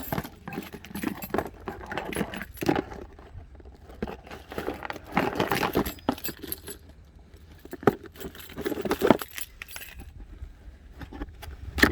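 Irregular rustling, clinks and knocks of packaging being torn open and a boxed power tool being taken out, with louder bursts about halfway through and again near the end.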